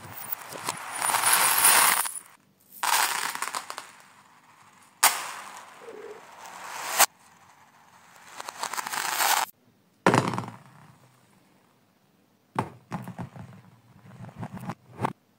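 Small plastic beads, rings and little balls clattering and rattling across a hard laminate floor in several bursts, played backwards, so some bursts swell up and cut off abruptly. Near the end come a string of separate small knocks.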